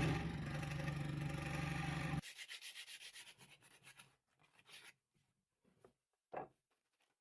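Scroll saw running and cutting MDF, a steady motor hum with the blade's buzz, cutting off suddenly about two seconds in. A quick run of rhythmic rubbing strokes follows and fades away.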